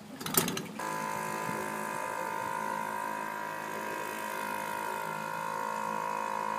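Small outboard motor being pull-started: the recoil starter cord rattles and clicks for under a second. The motor then catches and runs at a steady pitch.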